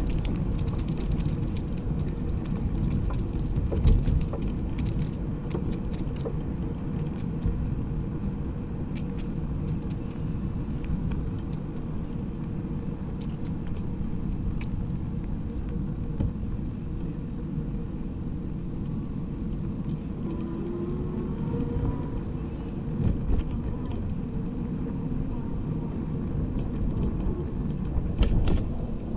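Steady low rumble of wind on the microphone and tyres rolling on a paved path as the camera rides along, with a few louder knocks, the loudest near the end.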